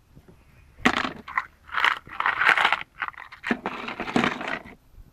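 Several rough scraping and crackling handling noises, each lasting under a second, from about one second in until near the end.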